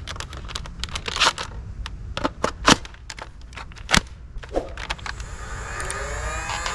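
Irregular sharp clicks and knocks from a plastic toy M16 gun being handled. Near the end, music with rising tones begins to come in.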